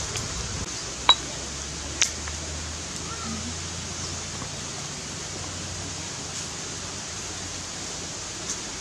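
Wood fire burning under a flat stone cooking slab, with two sharp pops about one and two seconds in over a steady hiss.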